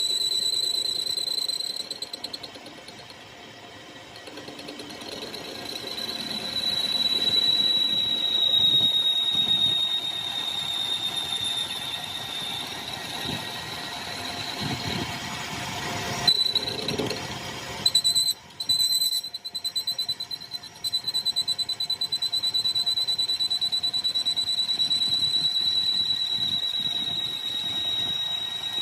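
A steady high-pitched squeal from a metalworking machine, wavering slightly in pitch. It fades for a few seconds early on and breaks up with a few sharp knocks a little past the middle before returning.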